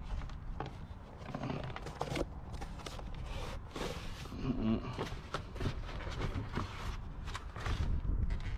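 Cardboard box being handled and pulled open by hand: flaps rustling and scraping, with many short knocks and rustles.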